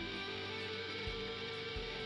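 Instrumental outro music with guitar over a light beat.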